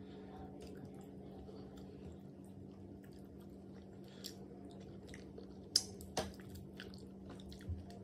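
Close-up wet eating sounds of poundo yam with black soup: chewing, lip smacks and soft squishes, with scattered short clicks and two sharper ones about six seconds in, over a steady low hum.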